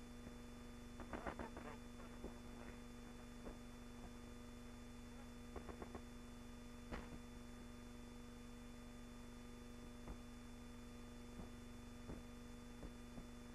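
A steady low hum with faint, scattered sharp clicks, some coming in quick clusters of three or four.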